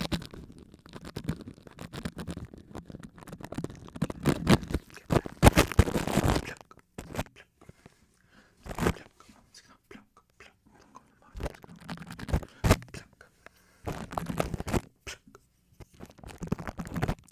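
Close-miked ASMR scratching and crackling on the microphone: a dense run of crunchy scratches for about six seconds, then short scattered bursts with pauses between them.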